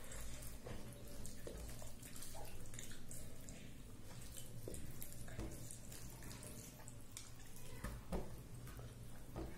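Fingers mixing and kneading rice with masoor dal and vegetable curry on a plate, giving faint, irregular wet squishes and small clicks.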